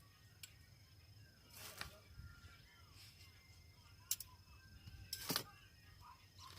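A few scattered sharp clicks and knocks over a faint, steady high-pitched tone.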